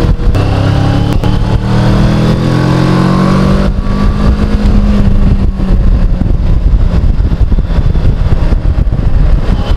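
Motorcycle engine under way, pulling with a slowly rising note for the first few seconds, then easing off about four seconds in. After that, wind rushing over the helmet-mounted microphone takes over.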